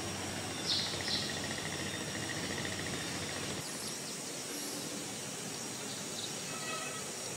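Steady outdoor background noise with a couple of short high chirps about a second in and a fast, rapidly pulsing trill over the next few seconds, like birds and insects.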